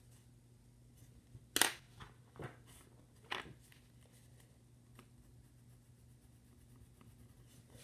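A few light clicks and clacks of coloured pencils being set down and picked up on a desk, the sharpest about one and a half seconds in.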